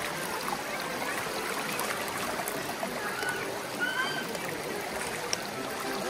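Shallow stream running over rocks: a steady rush and trickle of water.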